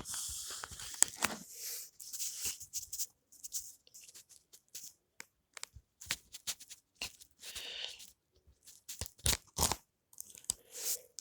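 A Blu-ray and DVD set's plastic packaging being opened by hand: a tearing, crinkling rush in the first second or so, then scattered plastic clicks and rustles.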